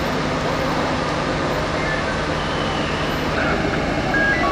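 Steady rumble of vehicle engines running, with a low hum that cuts off about three seconds in and a few short high tones near the end.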